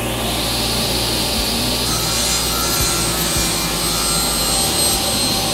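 Table saw cutting a piece of oak: a steady hiss of the blade through the wood over the hum of the machine.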